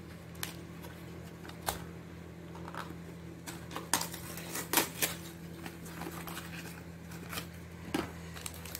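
Cardboard gelatin-powder boxes being opened and the plastic sachets inside handled and torn: scattered crinkles, rustles and small clicks, heaviest about four to five seconds in. A steady low hum runs beneath.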